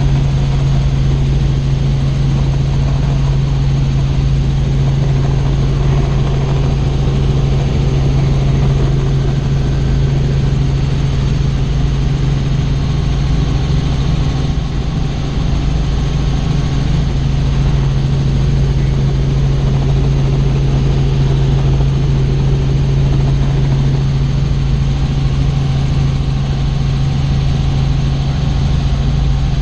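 Helicopter in flight: a loud, steady drone of rotor and engine with a strong low hum.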